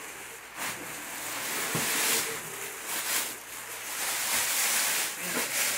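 Thin plastic bag rustling and crinkling in several surges as a plastic-wrapped hard case is lifted out of a cardboard box.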